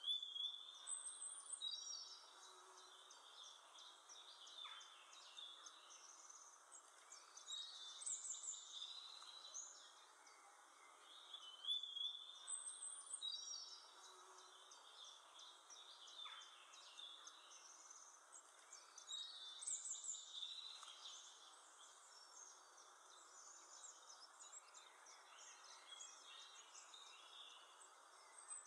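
Faint bird song: high chirping phrases that come back every few seconds, over a steady soft hiss of background noise.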